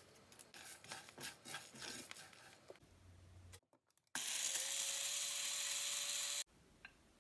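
Small clicks and rattles of dry-roasted whole spices being handled, then a Magic Bullet blender grinding them to powder: a steady whir with a thin hum that starts about four seconds in and stops about two and a half seconds later.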